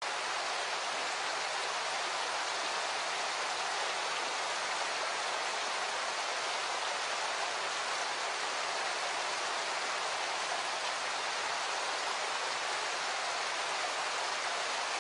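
Steady, even rushing of running water, like a stream or waterfall.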